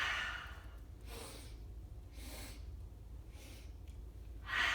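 Loud, forceful breathing of the 'breath of joy' yoga exercise. A strong exhale through the mouth comes at the start, then three short, quieter sniffing inhales through the nose, then another strong exhale near the end.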